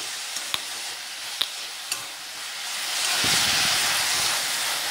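Onion, tomato and spices sizzling in hot oil in a metal wok while being stirred, with a few sharp clicks of the stirring spoon against the pan. The sizzle grows louder about three seconds in.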